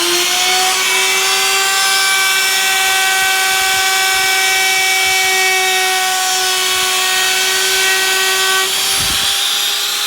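Handheld electric wood router running at full speed while routing the edges of a wooden board: a steady, high motor whine over the hiss of the bit cutting wood, with a brief change in tone about nine seconds in.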